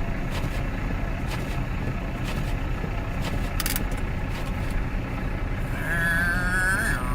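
Front-wheel-drive Cadillac stuck in snow, its engine held at high revs while the front wheels spin, under steady blizzard wind noise.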